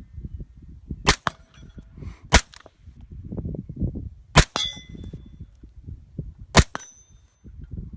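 Four suppressed shots from an AR-15 in .223 with a SilencerCo Saker suppressor, fired one at a time about one to two seconds apart. The last two shots are each followed by a brief metallic ring.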